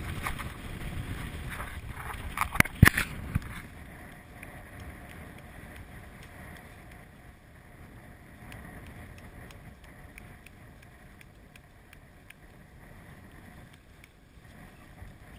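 Wind and water noise around a small boat on choppy sea, with a few sharp knocks about two and a half to three seconds in; after that a steady, quieter hiss.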